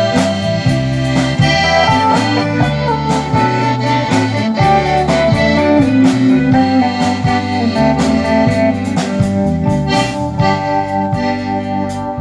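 Live band playing an instrumental passage: a button accordion leads with held notes over electric guitar, bass and drums keeping a steady beat.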